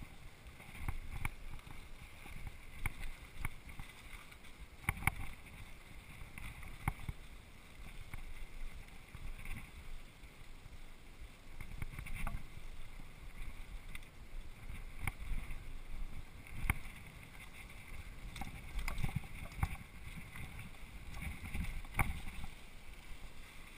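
Mountain bike riding down a dirt singletrack: a steady rumble from the tyres on the trail, with irregular knocks and rattles as the bike goes over bumps, picked up through a camera mounted on the handlebars.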